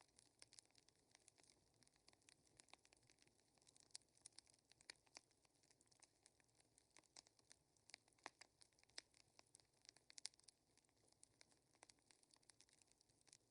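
Faint, irregular crackling of a small fire, a dense run of sharp pops and clicks several times a second over a soft hiss.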